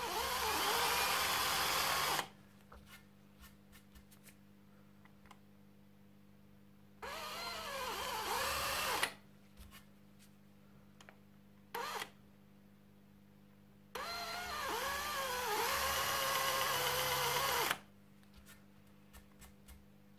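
Cordless drill with a small bit boring shallow holes into a wooden musket stock to open up wormholes for plugging. It runs in three spurts of two to four seconds and one brief blip near the middle, its whine wavering in pitch as the bit bites. There are light clicks and knocks of handling between the spurts.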